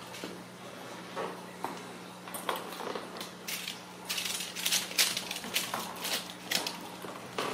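Ragdoll kittens batting and scuffling a small toy across a tile floor: irregular clicks, rattles and scrapes, sparse at first and then quick and busy from a little past two seconds in. A steady low hum runs underneath.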